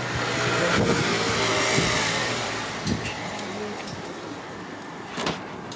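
A motor vehicle driving past, its noise swelling to a peak about two seconds in and then fading away, with a few light knocks along the way.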